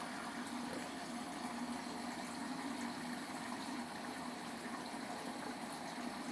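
Water rushing steadily inside a Samsung WW70T4020CX front-loading washing machine, starting suddenly just as a low hum cuts off.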